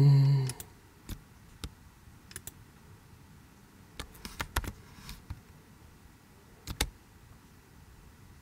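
Scattered clicks of a computer mouse and keyboard: a few single clicks, a quick cluster about four seconds in, and a close pair near the end.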